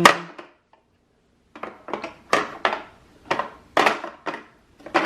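Light clicks and clacks of small skincare bottles and jars being set down and shifted in drawer organizer trays. There are about eight irregular knocks after a short pause.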